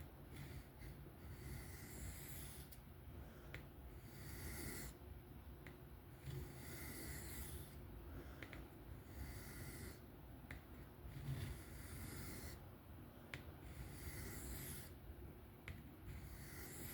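Knife blade being stroked freehand across a 1200-grit sharpening stone: repeated faint scraping strokes, about one every second or two, with a few light clicks. It is working the edge at a held angle to blend the bevel in.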